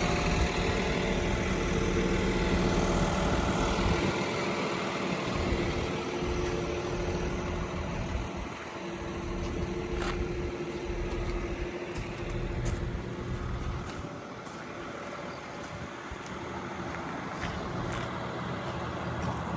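Volvo EW180C wheeled excavator's diesel engine running steadily, with a few faint clicks along the way.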